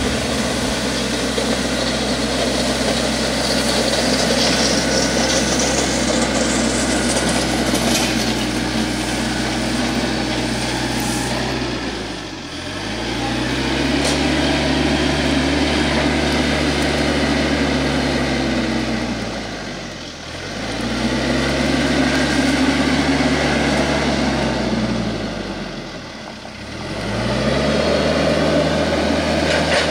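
TYM T474 compact tractor's diesel engine running steadily while pulling a land plane over gravel. Three times the engine note briefly dips and comes back up.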